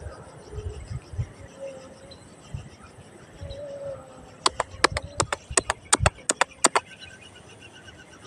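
A quick run of about a dozen sharp clicks lasting roughly two seconds, after the middle, with a few low dull thumps.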